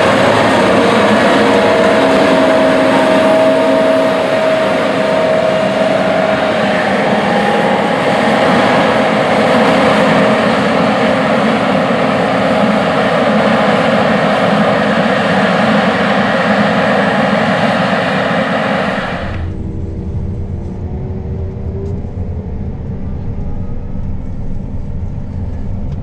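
John Deere S780 combine running while harvesting corn: a loud, steady engine and machinery noise with a whine over it. About three-quarters of the way through it changes abruptly to a quieter, muffled low rumble of the combine as heard from inside its cab.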